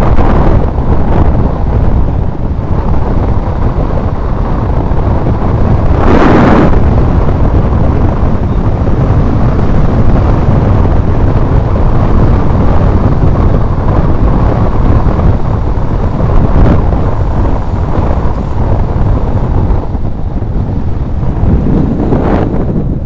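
Heavy wind buffeting on the microphone of a mountain biker riding fast on asphalt: a steady low rush, with stronger gusts about six seconds in and again near the end.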